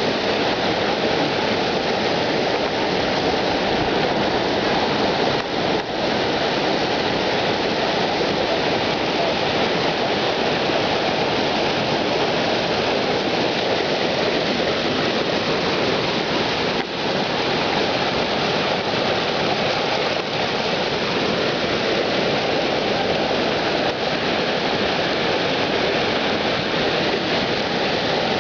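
Waterfall: water falling and rushing in a steady, loud roar of white noise that never lets up.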